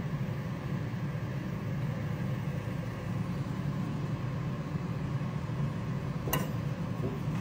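Steady low hum, with a single sharp click about six seconds in.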